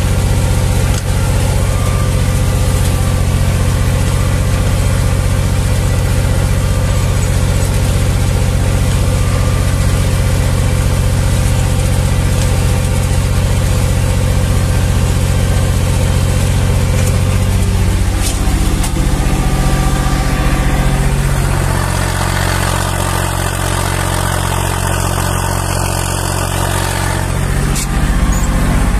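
Zetor 5011 tractor's three-cylinder diesel engine running under load while pulling a two-furrow plow, heard from inside the cab. About two-thirds of the way through, the engine note falls and stays lower for several seconds, then rises again near the end.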